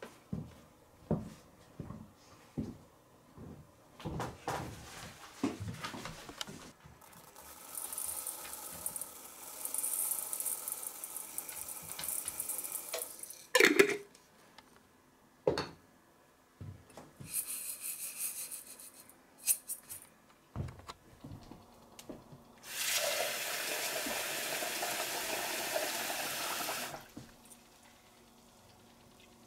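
Kitchen tap running into a stainless steel pot as red lentils are rinsed, in three spells, the last one the loudest. Knocks and clatters of the pot come between the spells, the loudest a sharp clatter about halfway through.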